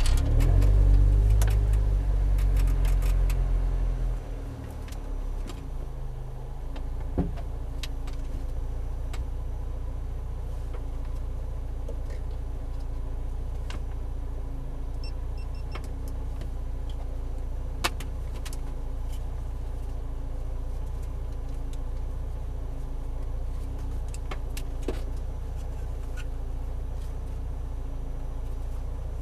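Lotus Exige Cup 260's supercharged four-cylinder engine heard from inside the cabin, louder for the first few seconds as the car pulls away at walking pace, then idling steadily as it creeps along. A few sharp clicks sound about 7, 18 and 25 seconds in.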